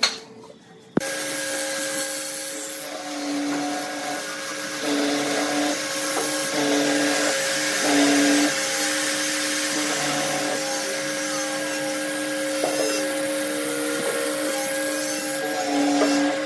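Hollow-chisel mortiser running steadily, starting abruptly about a second in, its auger and square chisel boring into a wooden beam, with the motor's note changing briefly again and again as the bit is plunged into the wood.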